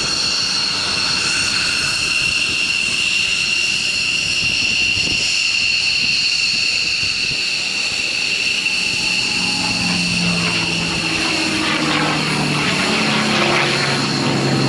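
Packard-built Rolls-Royce Merlin V12 engine of a P-51 Mustang running in flight, its low engine note coming through more strongly from about nine seconds in. Under it is a steady high-pitched whine that fades toward the end.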